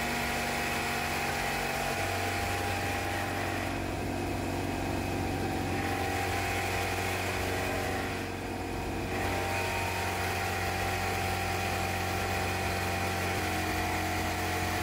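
DeWalt pancake air compressor's electric motor and pump running steadily as the tank fills. The sound turns duller for a second or so while the cabinet door is shut on it.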